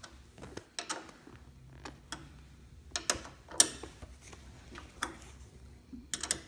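Irregular small clicks and ticks of metal hardware and a hand tool being handled as a convertible-top cable is fastened to a screw, the sharpest click about halfway through and a quick cluster near the end.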